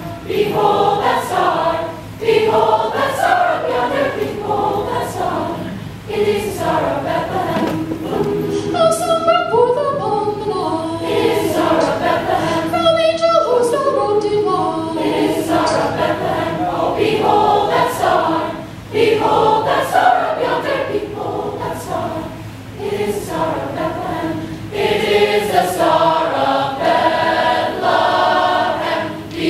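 Large mixed chorus of high school voices singing together. The sound thins out briefly twice near the middle before the full choir returns.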